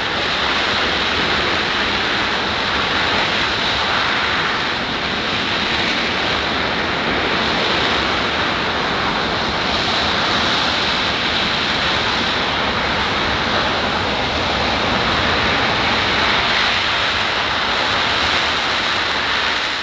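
Boeing C-17 Globemaster III's four turbofan jet engines running with a loud, steady roar as the transport rolls out on the runway after landing.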